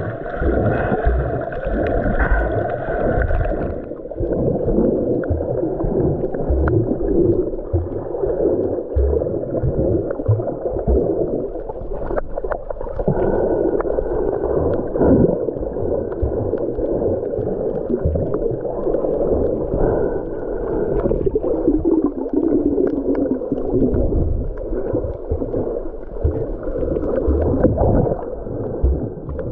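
Muffled gurgling and sloshing of water heard through a submerged camera, with swelling rushes of water and bubbles. About four seconds in, the sound turns duller and loses its upper edge, as happens when the camera goes under the surface.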